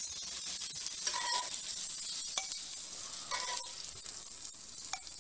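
Salmon fillets sizzling in olive oil and butter in a cast-iron skillet, the sizzle slowly dying down with the pan off the heat. A metal spatula scrapes and clinks a few times as it lifts the fillets out.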